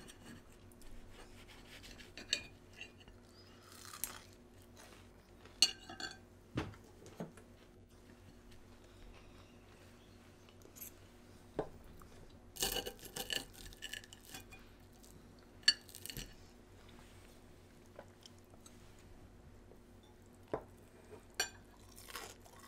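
Metal knife and fork clinking and scraping on a ceramic plate while cutting pancakes, in scattered sharp clinks with quiet gaps between them.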